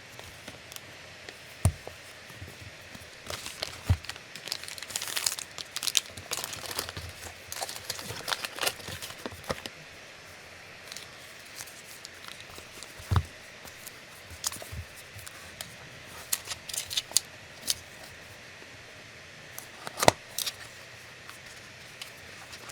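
Packaging being opened and handled: plastic and paper crinkling and tearing, thickest in the first half, with a few sharp knocks as pieces are set down, the loudest near the end.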